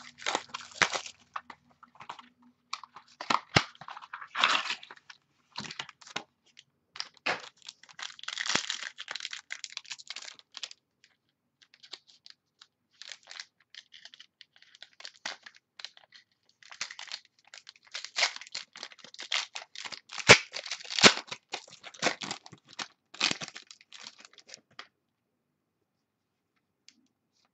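A foil trading-card pack being torn open and the cards handled, with crinkling wrapper and cards sliding and flicking against each other. It comes in irregular bursts of rustling and sharp tearing that stop a few seconds before the end.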